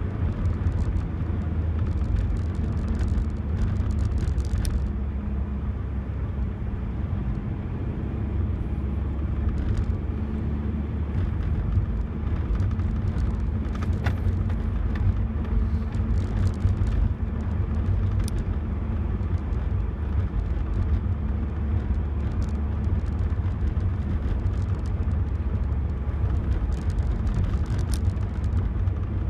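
Steady low road and engine rumble inside the cab of a 2002 Toyota Tacoma pickup as it drives along, with a few faint ticks scattered through it.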